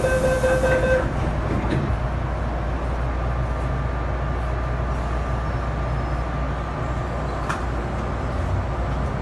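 A steady warning tone of a Hong Kong MTR subway train's doors stops about a second in. After it comes the steady rumble of the subway car, with a couple of brief clicks.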